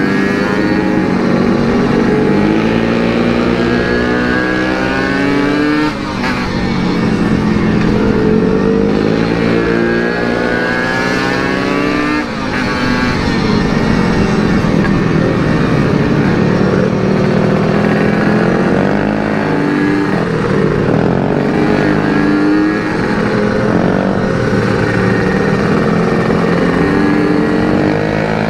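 Yamaha RX-King 135cc single-cylinder two-stroke engine with an aftermarket CRC Series exhaust, ridden hard. The revs climb and fall repeatedly, with short drops about six and twelve seconds in, each followed by the pitch rising again as it shifts up through the gears.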